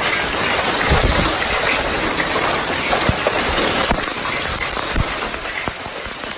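Hail pounding down in a dense hiss with many sharp individual hits. About four seconds in, the bright hiss drops away abruptly, leaving the separate hits clearer.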